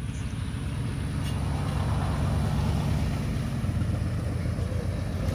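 Ford F-150 pickup truck's engine running as it drives slowly across grass towing a car trailer, a steady low sound that grows louder as the truck approaches.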